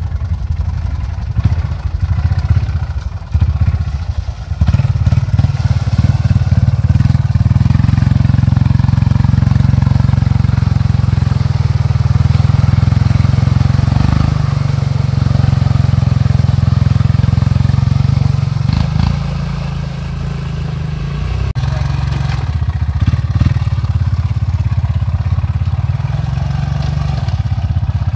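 ATV engine held at high revs, working hard as the four-wheeler churns through a mud hole. It is uneven for the first few seconds, then steady, and dips briefly about two-thirds of the way through before pulling again.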